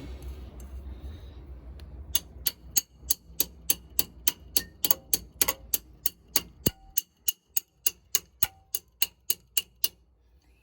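A regular series of sharp metallic clicks, about three a second, starting about two seconds in and running until near the end, over a faint low rumble that dies away partway through.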